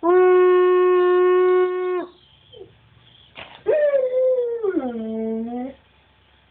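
Husky–wolf hybrid howling twice. The first howl is held on one steady pitch for about two seconds. After a pause, the second howl starts higher and slides down in steps to a low note.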